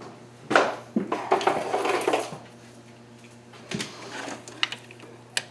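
Metal tools and hardware clinking and clattering under the hood: a run of clatter from about half a second to two seconds in, then a few separate sharp clinks near the end.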